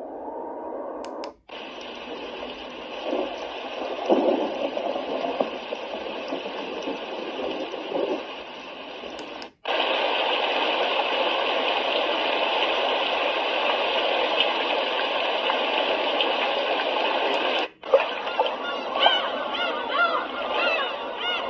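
Tuodi white noise machine playing its built-in sounds through its small speaker, switched from one to the next with a brief silence at each change. Each sound is a steady hiss lasting several seconds, and the last carries chirping bird calls.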